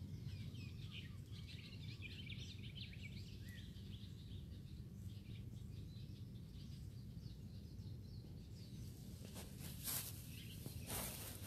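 Faint outdoor ambience with small birds chirping in the background over a steady low rumble, and a few brief rustling noises near the end.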